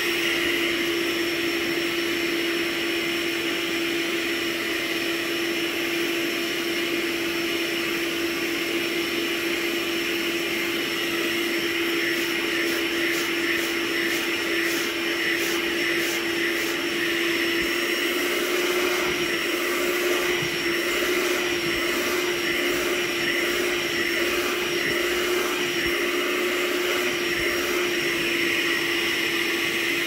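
Hoover OnePwr Spotless Go cordless portable carpet and upholstery cleaner running steadily, its suction motor holding one even hum while it works a carpet stain. Partway through, a spell of quick crackling is heard over the hum.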